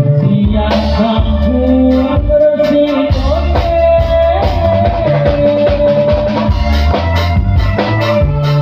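Live dangdut band playing: a sustained lead melody that bends in pitch, over steady bass notes, keyboard and a regular drum beat.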